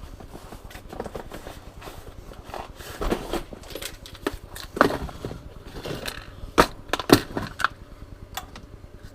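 Tackle box and fishing lures being handled and rummaged through: irregular clicks, knocks and rattles, with a few sharper clacks in the second half.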